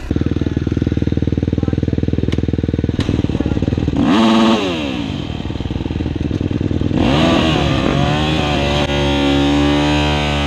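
Dirt bike engine running, revved up and back down once about four seconds in, with the pitch wavering up and down over the last few seconds.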